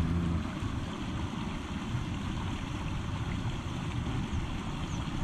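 Stream water rushing, a steady even noise.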